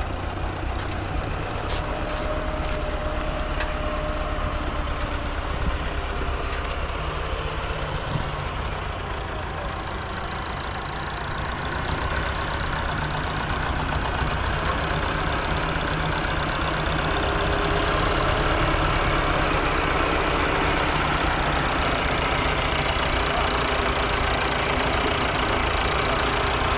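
An engine running steadily, a low rumble that grows a little louder about halfway through.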